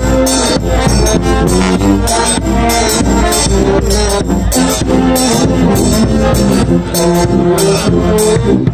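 Marching brass band playing as it passes close by: sousaphones and saxophones carry the tune over a bass drum keeping a steady beat.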